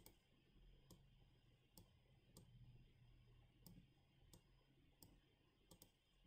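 Faint, sharp computer mouse clicks, about nine at uneven intervals with two in quick succession near the end, as faces are selected in CAD software.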